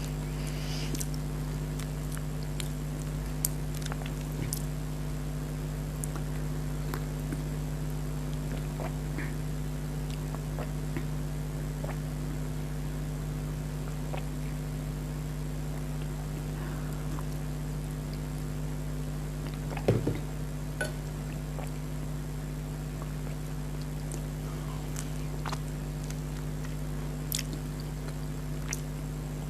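A person chewing mango close to the microphone, with scattered short wet clicks and smacks and one louder click about 20 seconds in. A steady low hum runs underneath.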